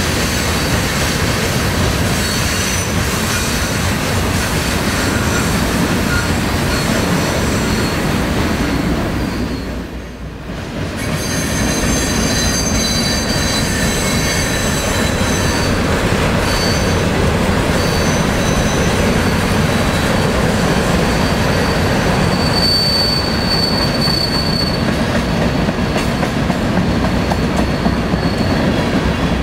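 Manifest freight train of tank cars and covered hoppers rolling past, a steady rumble of wheels and cars with high, thin wheel squeal that comes and goes as the train works through the curve. The sound dips briefly about ten seconds in.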